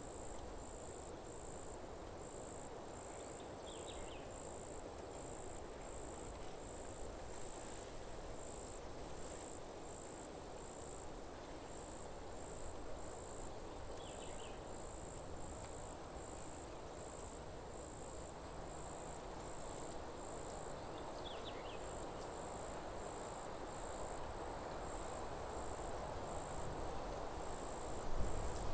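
Forest night ambience: an insect, cricket-like, chirping high-pitched in an even rhythm of about one and a half chirps a second over a steady low rush. Three short, fainter calls come through at wide intervals.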